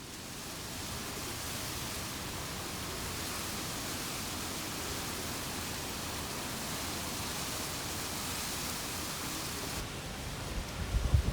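Steady rushing hiss of wind and rain in a storm. Near the end, low uneven thumps of gusts buffeting the microphone are the loudest sound.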